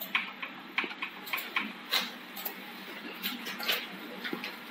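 Keyboard keys clicking: a dozen or so irregular keystrokes as a password is typed.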